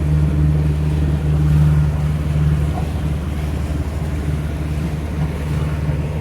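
A sailboat's engine running steadily under way, a constant low drone.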